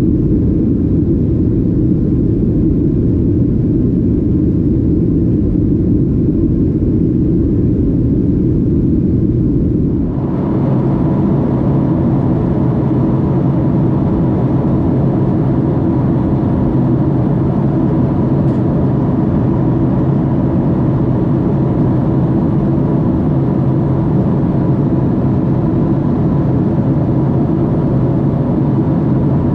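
Jet airliner cabin noise from a Boeing 737: a loud, steady rumble of engines and airflow heard from inside the cabin. About ten seconds in it abruptly brightens, and a steady whine joins the rumble.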